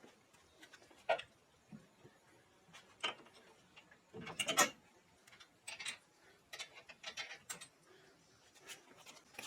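Scattered light clicks and clinks of bolts and hand tools being handled, a handful of separate taps with a louder cluster about four seconds in.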